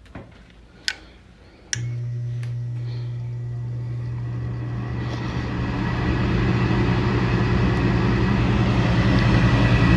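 A few sharp clicks, then a gas furnace's draft inducer motor starts with a sudden hum about two seconds in and spins up, growing steadily louder over several seconds. This is the first stage of the furnace's start-up sequence.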